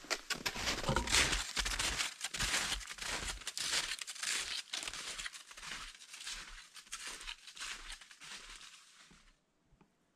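Snowshoe footsteps crunching on snow, a quick run of steps that grows fainter as the walker moves away, then cuts off abruptly near the end.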